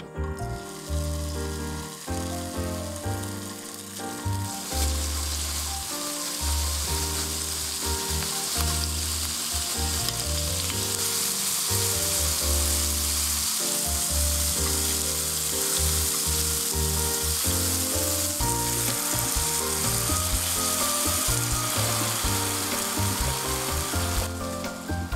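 Bacon and shimeji mushrooms sizzling as they fry in oil in a nonstick frying pan, with background music throughout. The sizzle is faint at first, grows loud about four seconds in, and drops away suddenly near the end.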